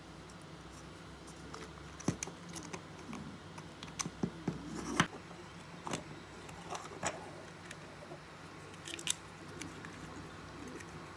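Hard plastic parts of a 3D-printed Dragon capsule model clicking and knocking as they are handled and fitted: a scattering of sharp clicks, the loudest about five seconds in, with a few more near the end.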